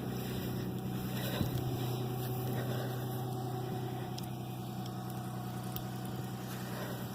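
A car engine idling with a steady low hum, and a few faint ticks.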